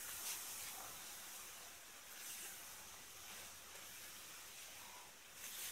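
Faint, steady sizzling hiss of semolina roasted in ghee cooking in the pan on a low flame, just after the melted sugar has been stirred in.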